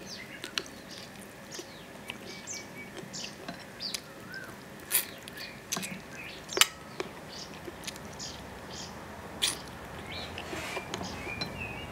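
Small birds chirping and twittering in the background while a person chews and smacks on braised prawns and chicken feet. Three sharp clicks stand out in the middle stretch, the loudest about two thirds of the way in.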